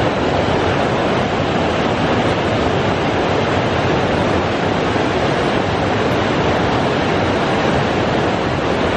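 Fast mountain river rushing over boulders in whitewater rapids: a loud, steady rush of water. The river is running high with snowmelt.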